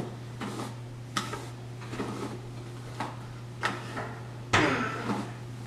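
About six light clicks and knocks at uneven intervals, the loudest about four and a half seconds in, over a steady low electrical hum.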